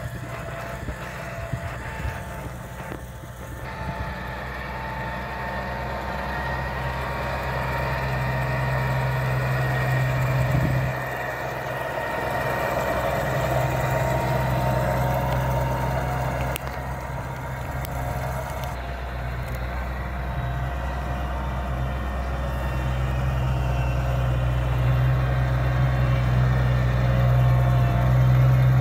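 New Holland T6.165 tractor's diesel engine running steadily as it pulls a mounted Amazone ZA-M fertiliser spreader across soft, freshly tilled ground. The engine hum grows louder as the tractor comes closer, dipping briefly about eleven seconds in.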